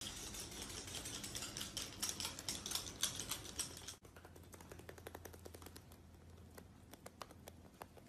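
Rapid light clicking of small claws on a tiled floor as pets run about, busy for the first few seconds, then sparser and fainter after about four seconds.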